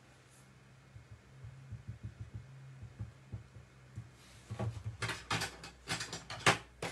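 Low steady hum with a few soft clicks, then from about two-thirds of the way in a busy run of rustles and light knocks as paper and small tools are handled on the desk.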